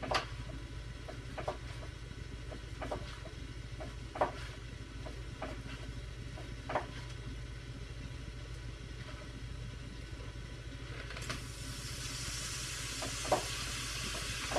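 Knife slicing raw beef into thin strips, knocking on the cutting board every second or so over a low steady hum. About 11 seconds in, a steady hiss starts abruptly.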